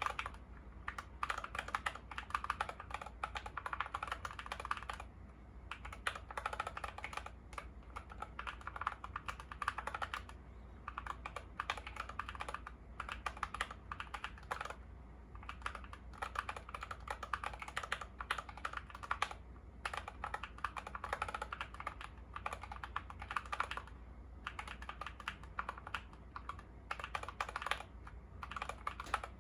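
Fast continuous typing on a YUNZII KC68 mechanical keyboard with lubed Gateron Yellow linear switches and XDA keycaps: rapid keystroke clacks, with short pauses every few seconds.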